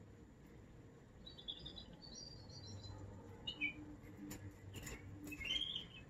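American Singer canary chirping in short, quiet warbled phrases, with a louder arching note near the end. A few sharp clicks fall in between.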